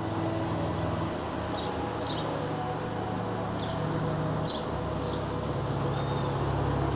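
Low, steady rumble of road traffic, with about five short, high bird chirps in the middle and one arching call near the end.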